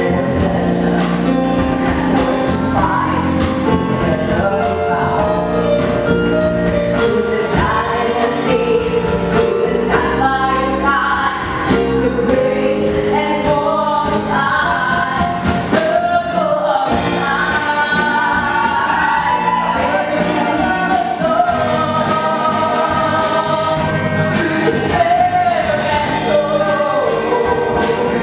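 Live rock band playing, with a female lead singer over electric guitar, bass, keyboard and drum kit.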